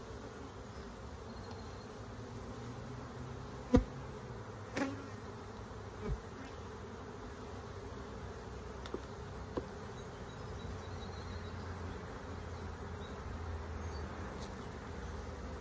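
Honeybees buzzing steadily around an opened hive, with a few sharp knocks and clicks; the loudest comes about four seconds in.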